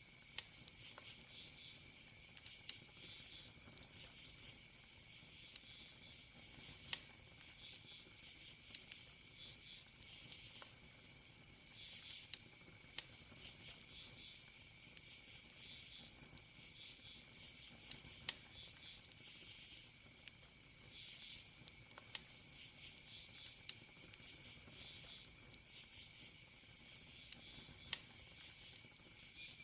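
Wood campfire crackling, with sharp pops at irregular intervals and a few louder snaps. Under it, crickets chirp in repeated half-second bursts over a steady high insect tone.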